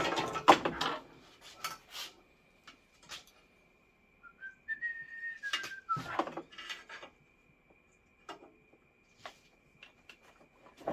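Clicks and clatter of wire leads being handled and clipped onto a portable power pack to test LED flood lights. About four seconds in comes a short whistle-like note that rises, holds and falls, and a faint steady high-pitched whine runs underneath, stronger in the second half.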